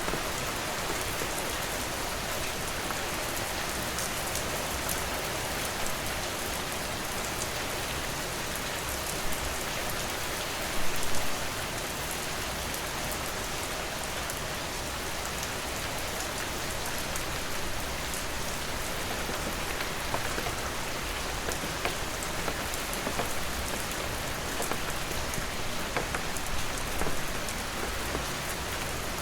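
Steady rain falling on a surface, an even hiss with scattered individual drops striking, a few louder spatters here and there, the loudest about eleven seconds in.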